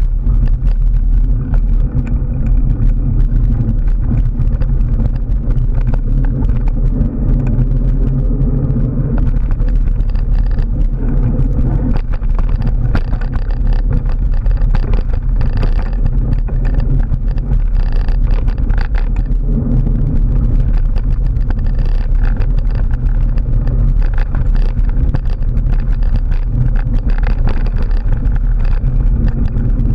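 Mountain bike riding a dirt trail, heard on a camera carried on the bike or rider: a loud, steady low rumble of wind and tyre noise on the microphone, with many small clicks and rattles from gravel and the bike.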